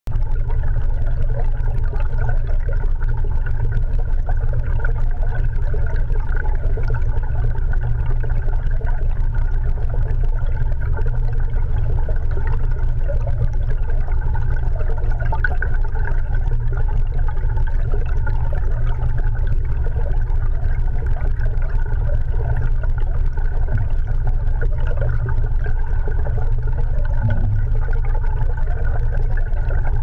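Steady, muffled underwater rumble picked up by a GoPro Hero 3 Black inside its waterproof housing, with water moving past it, and a faint steady drone over it the whole time.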